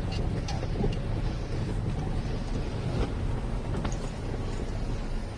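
Steady engine and road rumble of a moving vehicle on the road, with wind buffeting the microphone and a few light knocks.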